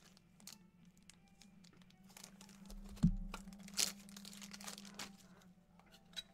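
Trading cards and plastic card holders being handled: faint rustling and crinkling, a low knock about three seconds in and a sharper click just before four seconds. Faint background music plays underneath.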